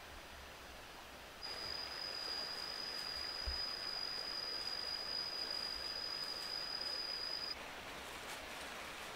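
An insect singing one steady high-pitched note over a hiss. It starts about a second and a half in and stops abruptly about six seconds later.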